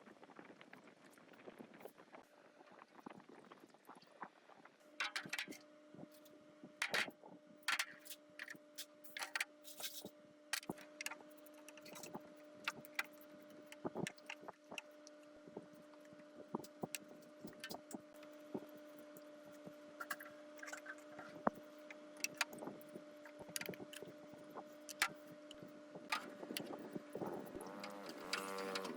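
Workshop hand work: scattered clicks, taps and knocks of tools on parts, over a steady hum that starts about five seconds in. A brief wavering tone joins near the end.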